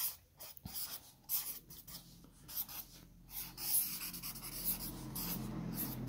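Sharpie permanent marker drawn across a pad of paper in a run of short, irregular strokes, scratching on the paper with brief pauses between lines.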